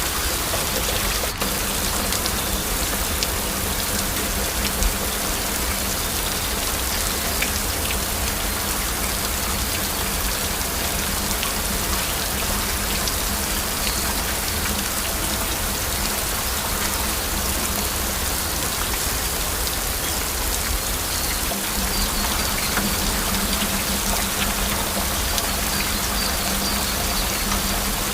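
Steady heavy rain: a dense, even hiss of falling water with many small, sharp drop ticks scattered through it.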